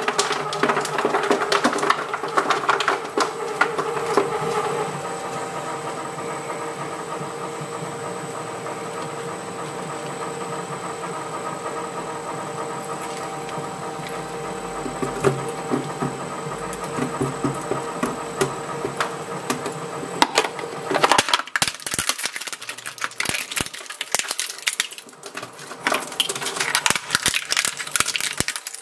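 Twin-shaft shredder crunching a red wax candle for the first few seconds, then running steadily with a motor hum and occasional clicks while a clear plastic tube is fed into the cutters. About two-thirds of the way through, the sound changes abruptly to sharp, irregular crackling and crunching as other objects are shredded.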